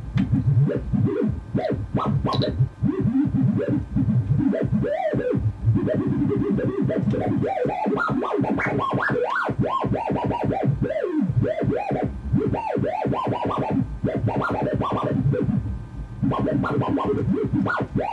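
Homemade electronic sound generator playing through an amplified speaker: two voltage-controlled oscillators mixed through an XOR gate, giving a warbling electronic tone that swoops rapidly up and down in pitch as the gyroscope steering them moves.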